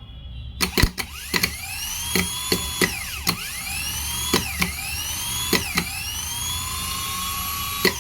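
Mahindra Scorpio S5 starter motor, freshly repaired, being run in short bursts: a dozen or so sharp clicks, each time followed by a high whine that rises in pitch as the motor spins up and then levels off.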